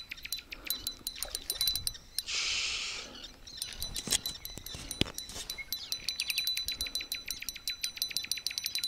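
Flagman spinning reel clicking rapidly, many ticks a second, as a hooked bream is played in on a feeder rod. A short hiss comes about two and a half seconds in.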